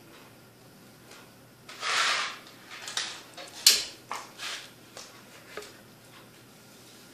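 A plastic CD jewel case and its paper booklet being handled: a brief scraping rustle about two seconds in, then a string of sharp plastic clicks and taps, the loudest a little before four seconds in.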